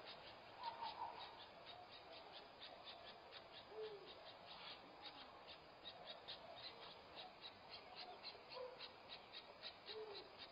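Faint night ambience: a steady high insect-like ticking, about four to five ticks a second, with a few short, low owl hoots.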